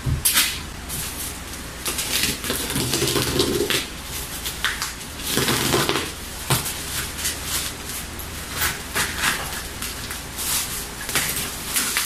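Plastic parcel wrapping crinkling and tearing as it is pulled open by hand, in irregular rustles and rips.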